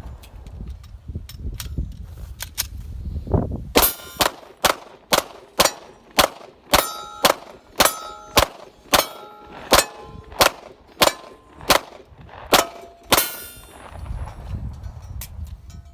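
Glock pistol fired in a long string, with a few spaced shots at first and then a steady run of about two shots a second that stops near the end. Many shots are followed by a short metallic ring, as of struck steel targets.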